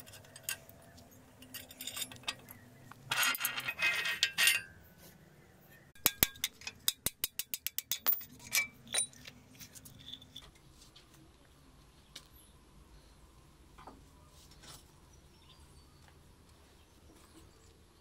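Metal parts clinking and clattering as a motorcycle is taken apart by hand, with a loud rattling clatter a few seconds in and a quick run of about ten sharp metallic clicks shortly after; then only faint ticks.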